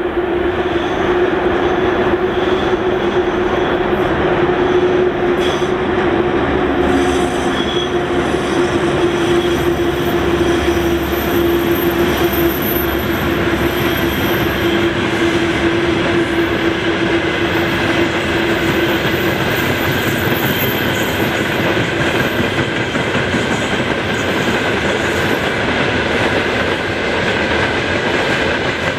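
Freight train hauled by a VL11-series electric locomotive running past: a loud, continuous rumble of wagon wheels on the rails. A steady tone rides over it and fades out about two-thirds of the way in.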